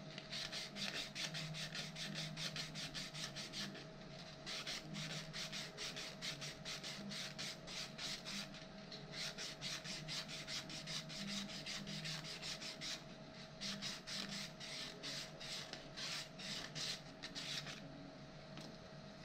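Hand-finishing a 3D-printed plastic part with an abrasive: rapid back-and-forth rubbing strokes, about four a second. They pause briefly twice and stop shortly before the end.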